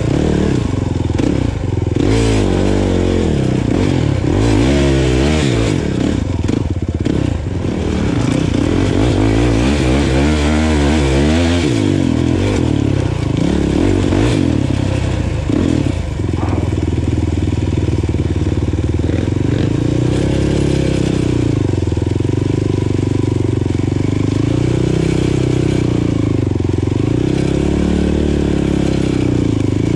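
Kawasaki KFX 450R sport ATV's single-cylinder four-stroke engine running close to the microphone while riding, its pitch rising and falling repeatedly with the throttle through the first half, then steadier with slow swells in revs.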